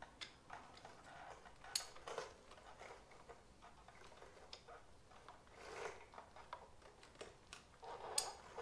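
Faint scattered metallic clicks and ticks from a 3/4-inch drive handle and 12-point socket being worked on a Harley-Davidson Sportster EVO's cylinder head bolts while they are loosened an eighth of a turn at a time. There are two sharper metal clinks, about two seconds in and near the end.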